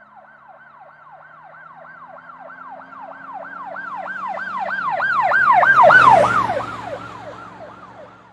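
Emergency vehicle siren on a fast yelp, about three rising-and-falling sweeps a second. It grows louder to a peak about six seconds in, then fades, dropping slightly in pitch as it passes by. A low vehicle rumble swells with it.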